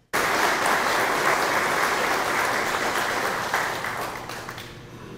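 Audience applauding: the clapping starts abruptly and dies away from about four seconds in, ending in a few scattered claps.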